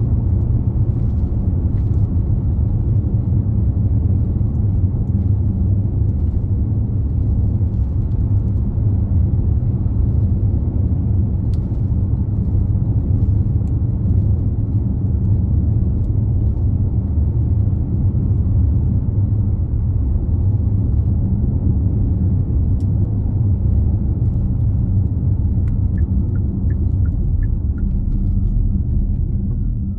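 Car driving along a highway: steady low rumble of road and engine noise.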